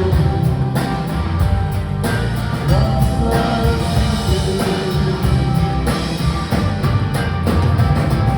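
Rock band playing live: drums, bass and guitars in a full, steady mix between sung lines.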